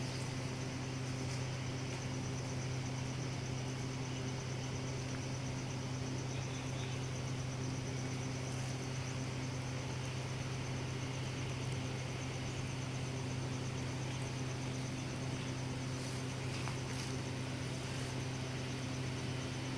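A steady low mechanical hum with a constant high-pitched insect trill over it, both unchanging throughout.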